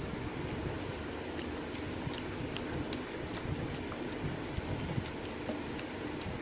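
Steady low background hum, with faint scattered clicks and taps as fingers tear pieces off a fried egg on a stainless steel plate.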